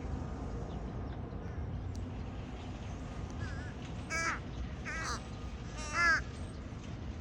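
A bird calling four times in the second half, short calls each arching up and down in pitch, the last the loudest, over a steady low background noise.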